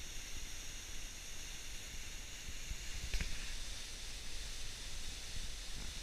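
Steady hiss of water falling from a cliff onto the ice cone of a partly frozen waterfall, with soft low rumbling bumps and a single sharp knock about three seconds in.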